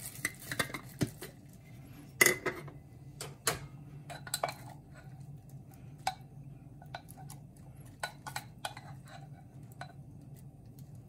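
Jar being opened and used: the plastic lid twisted off and put down, then a wooden spoon tapping and scraping inside the jar while scooping out marinade. A run of sharp clicks and clinks, the loudest about two seconds in, then sparser ones.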